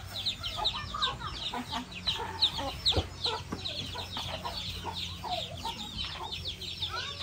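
Chickens: chicks peeping in a rapid run of short, high, falling cheeps, with lower clucking calls now and then. A single knock sounds about three seconds in.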